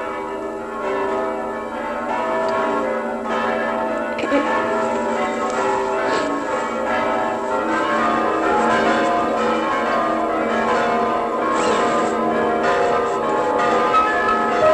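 Bells pealing: many ringing tones overlapping, growing a little louder over the first few seconds and then holding.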